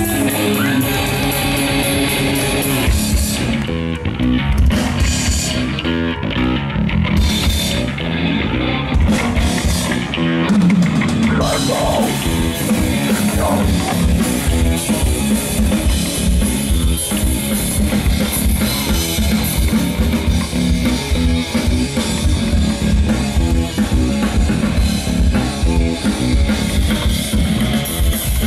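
Death metal band playing live: distorted electric guitar, bass and a drum kit hammering out a fast, dense rhythm. For the first ten seconds or so the band plays in stop-start patches, then runs on continuously.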